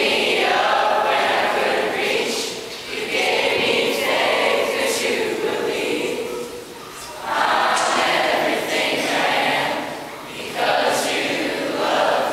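A choir of teenage boys and girls singing together, in phrases broken by short pauses about three, seven and ten seconds in.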